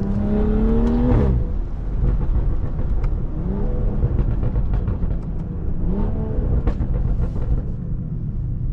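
Tuned turbocharged BMW engine through an aftermarket catback exhaust and downpipe, accelerating: the pitch climbs for about a second, then drops suddenly. Two shorter rising pulls follow over a steady low rumble, with a few sharp clicks.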